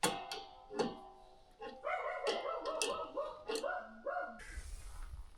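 A dog giving a quick run of short, high-pitched yips and whines, after a couple of sharp knocks at the start.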